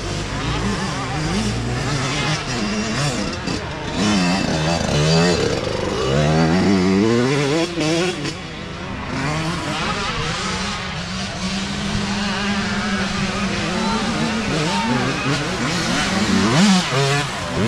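Youth dirt bike engines revving on a hill climb, the pitch rising and falling over and over with throttle and gear changes. About ten seconds in, the note holds steadier, and it is loudest near the end as a bike comes up close.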